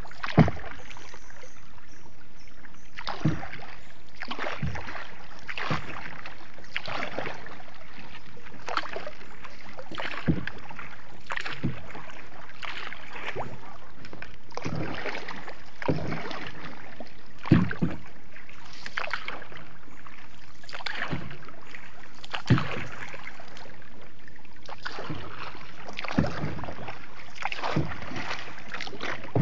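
Paddle strokes splashing in floodwater as a small boat is paddled along, about one stroke a second, with water swishing between strokes.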